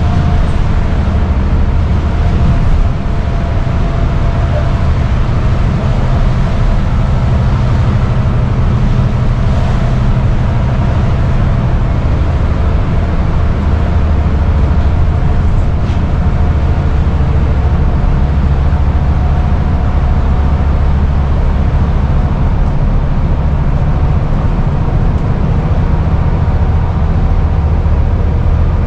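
Scania N230UD double-decker bus under way, heard from inside on the upper deck: its five-cylinder diesel engine runs with a steady low drone over road noise.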